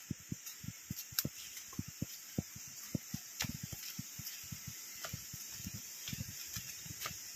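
Footsteps on a dirt forest path littered with dry leaves: a run of quick, irregular soft thuds with occasional sharp crackles, over a steady high hiss.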